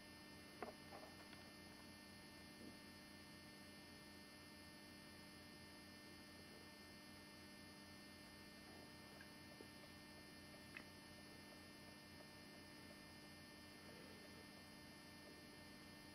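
Near silence: a faint steady electrical hum, with a couple of faint ticks.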